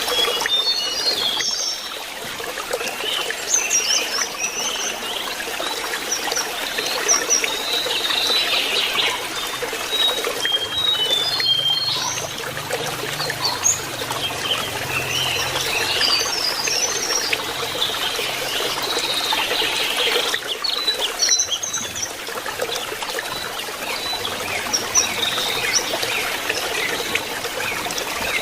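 Lesser shortwing singing short, high, quick twittering phrases again and again over steady trickling water.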